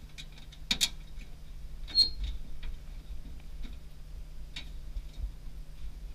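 Irregular light clicks and taps, with a sharper knock about a second in and a short high-pitched ping at two seconds, over a steady low hum.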